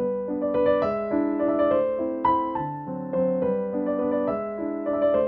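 Background piano music: a simple melody of single notes over a lower accompaniment.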